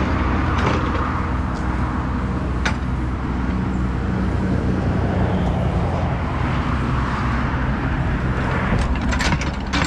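An engine running steadily at constant speed, with an even hiss over it.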